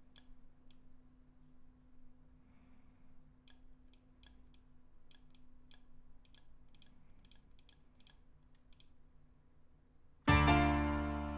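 A dozen or so scattered computer mouse clicks, then about ten seconds in a loud piano chord sounds suddenly and dies away as the chords in the software piano roll are played back.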